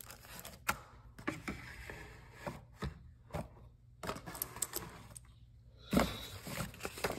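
Unpacking and handling noises: scattered clicks and rustles from a small plastic parts bag, a cardboard box and a plastic soft-starter unit on a wooden table, with one louder knock about six seconds in.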